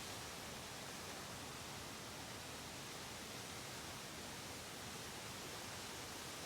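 Steady, even rush of a waterfall's falling water, faint and unchanging.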